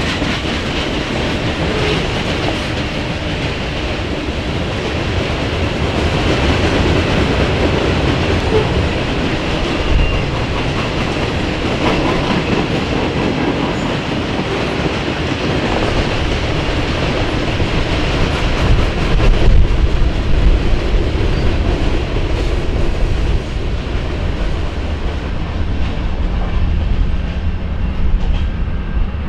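Freight train cars rolling past, wheels clacking over the rail joints. The higher sounds die away over the last few seconds as the train draws off.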